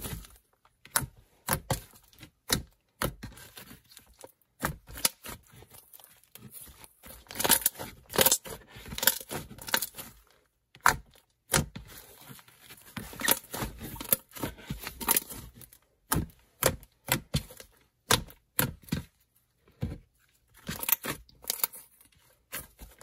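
Hands squishing, pressing and stretching a soft clay slime, making irregular sticky crackles, clicks and tearing sounds in short clusters.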